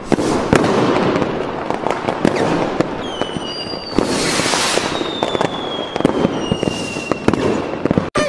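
Fireworks: firecrackers popping and crackling over a steady hiss, with a long whistle sliding slowly down in pitch from about three seconds in.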